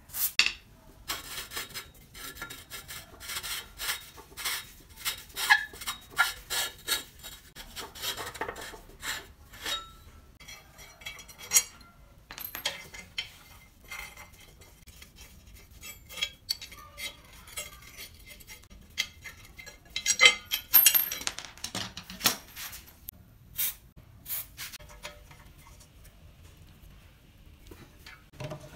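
Rusty drill press table and column parts being handled and worked loose by hand: a run of metal scrapes, knocks and clinks, busiest in the first ten seconds and again about twenty seconds in.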